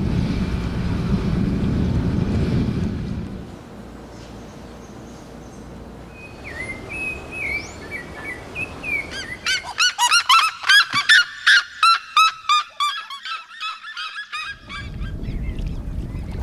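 A bird calling loudly in a rapid series of harsh, honking notes for about five seconds, preceded by a few softer scattered calls. A low rumble fills the opening seconds and returns near the end.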